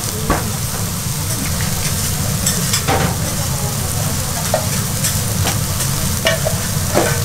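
Beef steak and bean sprouts sizzling steadily on a hot iron griddle, over a steady low hum, with a few sharp metal clinks of the cook's tray and utensils against the plate.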